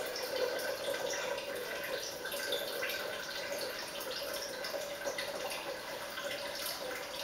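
Refrigerator door water dispenser running, a steady stream of water filling a container.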